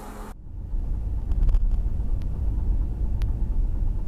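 A hissing sound cuts off sharply a moment in, giving way to the steady low rumble of a car driving at highway speed, engine and tyre noise, with a few faint clicks.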